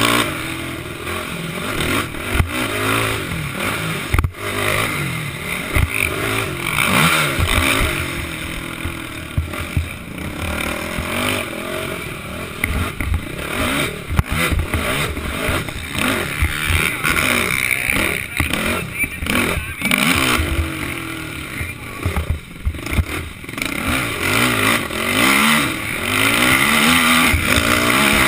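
Racing quad (ATV) engine revving up and down as the throttle is worked, heard from the rider's helmet, with wind noise on the microphone and frequent short knocks from the rough track.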